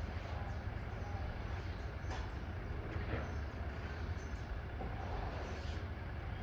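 Semi-trailer truck's diesel engine running with a steady low rumble under a wash of road noise.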